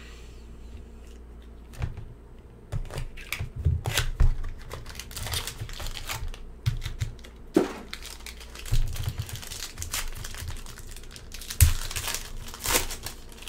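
A cardboard trading-card box being opened and the foil card pack inside crinkling and tearing open by hand, in irregular crackles with a few light knocks of handling against the table.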